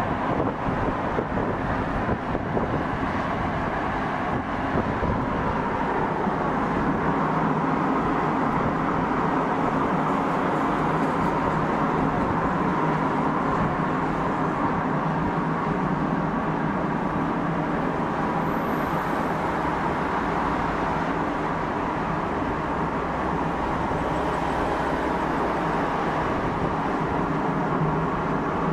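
Steady road noise of cars driving at cruising speed: tyres on asphalt and engines running, with no revving or sudden events.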